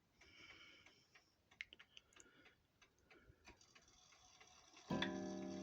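Seth Thomas mantel clock ticking faintly, then about a second before the end its gong is struck once by the leather-faced hammer and rings on with a long, slowly fading tone, the first stroke of the hour strike.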